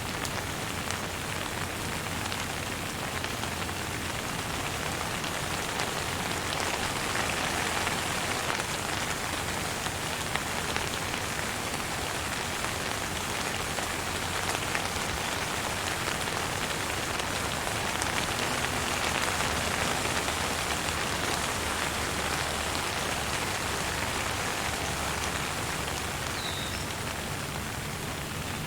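Steady rain falling: a dense, even hiss dotted with the ticks of single drops, swelling a little twice.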